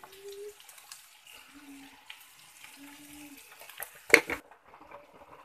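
Sliced onions sizzling softly in oil in a steel kadai as they are stirred with a slotted spatula, with one sharp, loud clatter about four seconds in.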